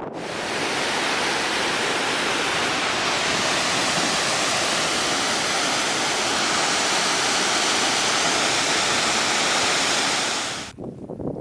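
White River Falls, water pouring over the falls in a steady, even rush that stops suddenly about a second before the end.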